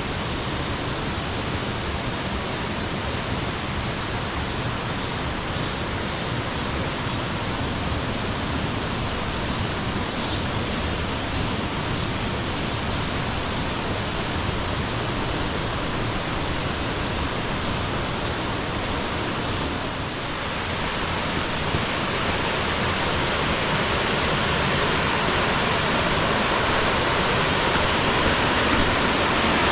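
Rushing water of a mountain valley stream, a steady even rush that grows louder about two-thirds of the way through.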